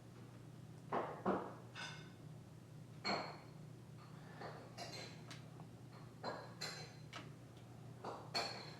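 Small metal parts of an Abus Wavy Line padlock and the tools working on it clicking and clinking as the lock is taken apart, about eight sharp clinks, some ringing briefly, over a steady low hum.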